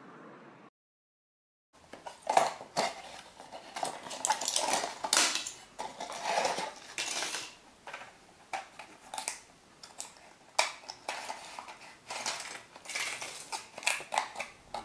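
Foil blister packs of tablets being handled and pills pressed out, giving a string of irregular sharp clicks, crackles and light rattles that starts about two seconds in after a brief silence.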